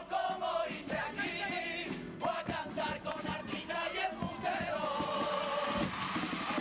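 A junior chirigota of young voices singing together in chorus, accompanied by guitar and frequent drum strikes.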